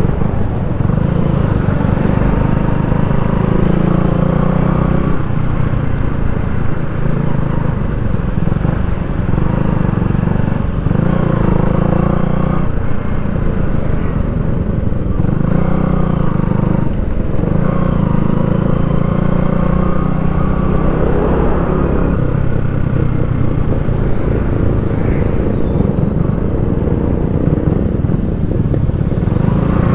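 Motorcycle engine running on the move, its pitch and level shifting every few seconds as the throttle changes.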